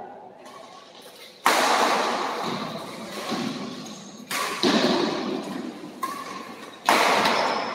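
Badminton rackets striking the shuttlecock during a doubles rally: three hard, sharp hits about one and a half seconds in, near the middle and near the end, each ringing on in the large hall.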